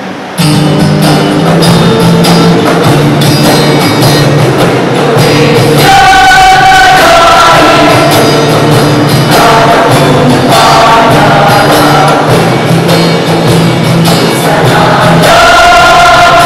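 Women's choir singing an Indonesian mars, a march-style organisational anthem, under a conductor. The singing begins about half a second in, and the melody climbs to higher notes about six seconds in.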